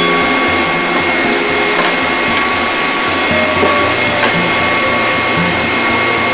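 Table saw running with a dado blade mounted: a steady motor whine over a constant rushing noise, with a few faint ticks.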